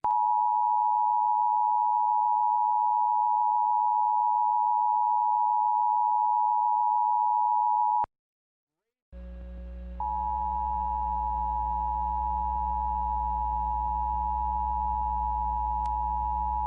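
Emergency Alert System attention signal: the steady two-tone beep of 853 and 960 Hz, held for about eight seconds and then cutting off. After a second of silence, a low steady hum comes in, and a second attention signal starts over it about ten seconds in and keeps going.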